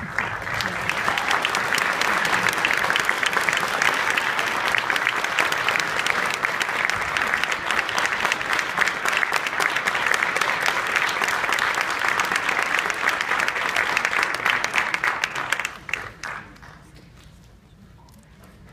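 Audience applauding, dense clapping that fades out about sixteen seconds in.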